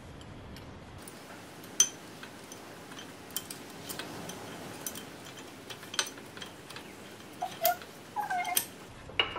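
Scattered light metallic clicks and taps from a Brembo brake caliper as the pad retaining pin is worked through the caliper, the brake pads and the retaining clip, the sharpest click about two seconds in. A few short squeaks near the end.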